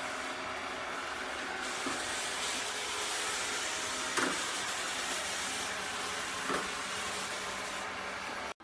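ILIFE robot vacuum cleaner running with a steady hiss, with a few faint knocks along the way. The sound cuts off abruptly near the end.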